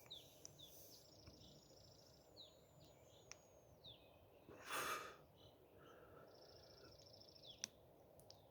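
Faint outdoor ambience with small birds chirping and trilling: short high downward chirps repeated throughout, and two buzzy trills. A short breath about five seconds in is the loudest sound.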